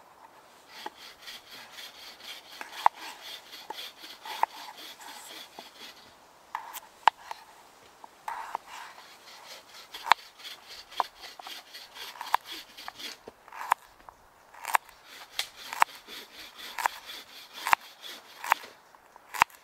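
Small knife cutting raw potatoes and carrot on a wooden log-slice chopping board. The blade slices through and knocks sharply on the wood, roughly once a second.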